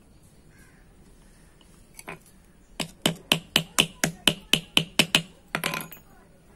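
Small hammer striking a drum brake shoe held over a steel valve stem, setting the rivets of a new brake liner. About a dozen sharp metallic strikes, about four a second, then a quick cluster of knocks near the end.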